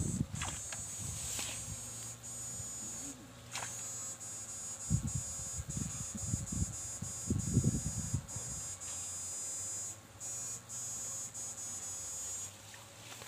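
High-pitched electric buzz of a backpack electrofishing unit, steady but cutting off briefly a few times. Under it, steps swish and thud through tall grass, loudest about five to eight seconds in.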